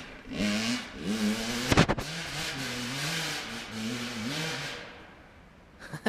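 2009 Kawasaki KX100's two-stroke single-cylinder engine with an FMF PowerCore 2 exhaust, revving up and down several times, with a sharp crack about two seconds in, then fading out near the end.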